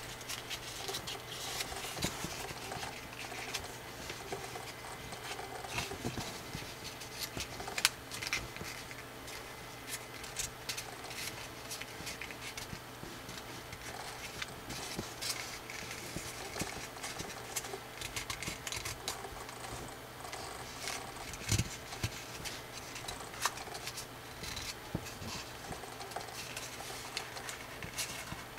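Thick coloured drawing paper being creased, pinched and shaped by hand into an origami pig: irregular small crackles, crinkles and rubbing, over a faint steady low hum.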